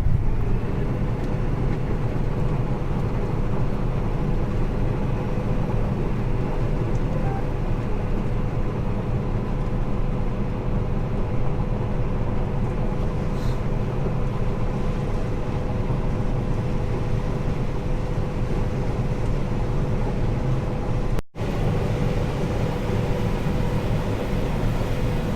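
Combine harvester running under load while harvesting corn: a steady machine drone with a thin steady whine over it. The sound drops out for an instant about 21 seconds in.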